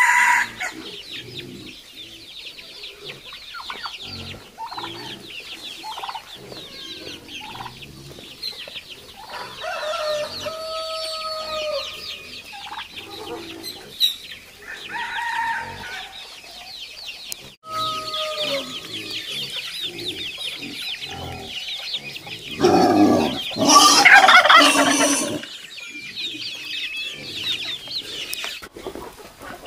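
Chickens clucking, with a rooster crowing; the loudest, longest crow comes about three-quarters of the way through.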